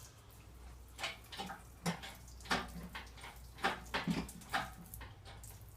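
Irregular knocks and clanks of metal parts and tools being handled during engine removal, about eight to ten short hits at uneven spacing over a steady low hum.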